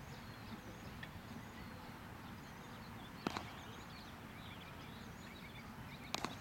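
Birds chirping over steady outdoor background noise, with one sharp knock about three seconds in and a quick double knock near the end.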